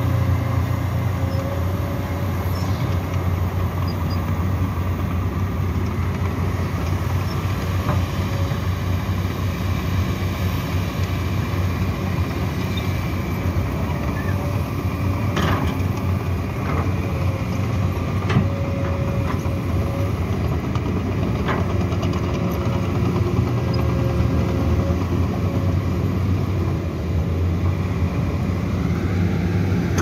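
Heavy diesel earthmoving machinery at work: a Kobelco hydraulic excavator digging, with crawler bulldozers running behind it, gives a steady low engine rumble. A faint whine comes and goes, and a few sharp clanks fall around the middle.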